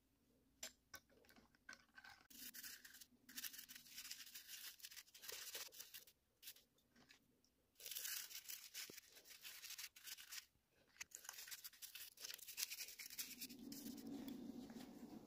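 Faint scratchy scrubbing of a toothbrush's bristles on a small plastic model-car part in a tub of liquid, in bursts of brushing strokes with short pauses between them.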